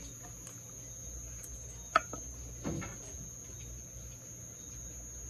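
Eating sounds as a chicken wing is pulled apart and chewed: one sharp mouth smack about two seconds in and a softer one just after. Under them runs a steady, high-pitched insect trill, like crickets.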